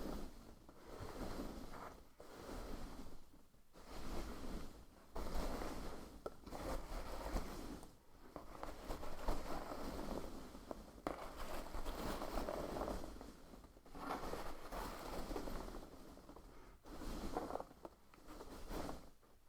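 Soft, close-up scraping and rustling strokes made for ASMR, coming in a series of passes a second or two long with short breaks between them.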